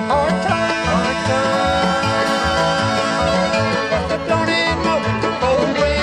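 Acoustic bluegrass band playing at a steady, brisk beat: fiddle, mandolin and guitar, with a regular low pulse on the beat.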